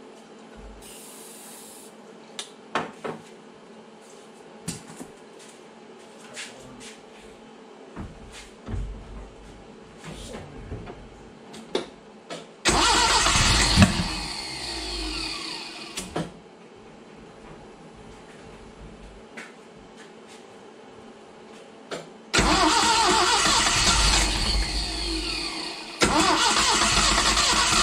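A 1970 Datsun 521's L16 inline-four being cranked on its starter after decades unused, trying to fire without settling into a steady run. The first cranking starts about 13 s in and lasts about three seconds. The second starts about 22 s in and grows louder about 26 s in. Scattered light clicks and taps come before the first cranking.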